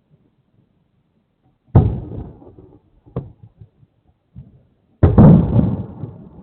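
Fireworks shells bursting, heard through an outdoor security camera's microphone. A loud boom comes under two seconds in, then a short sharp crack, then the loudest boom about five seconds in; each boom rolls away in a long echo.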